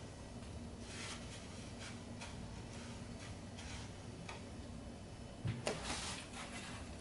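Hands rolling a stuffed potato croquette in breadcrumbs on a plate: soft scattered scraping and rustling strokes. A louder knock comes about five and a half seconds in as the croquette is set down on the tray.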